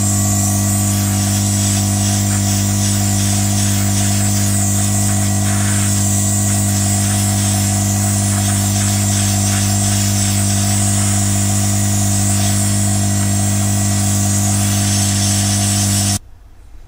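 Hot air rework station blowing hot air over a circuit board to reflow the solder: a steady fan hum with a hiss of rushing air, cutting off suddenly near the end.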